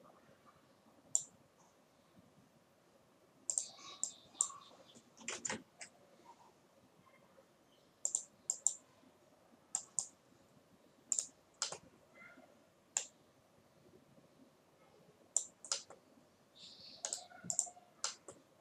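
Computer mouse and keyboard clicks while working in 3D modelling software: sharp single clicks and quick pairs, in short clusters with pauses of a second or two between.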